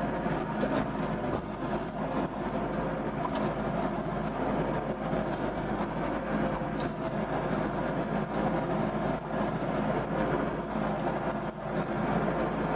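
Doosan DX55 mini excavator's diesel engine running steadily under load as the hydraulics dig and swing, heard from inside the operator's cab.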